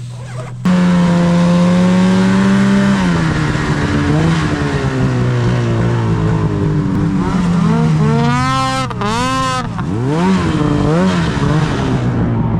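Snowmobile engine that cuts in suddenly near the start and runs at a steady pitch, then drops off. In the second half it revs up and down sharply several times.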